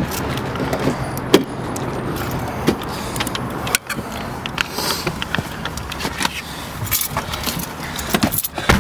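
A bunch of car keys jangling amid handling clicks and knocks while someone gets into a car, with a sharp knock near the end.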